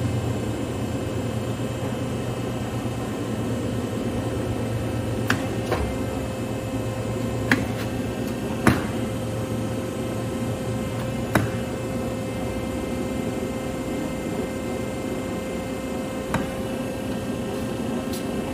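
1974 Monarch Model 80 engine lathe running under power: a steady hum with one constant tone from the spindle drive and gearing. Several sharp clicks come through it, from the carriage apron levers being worked.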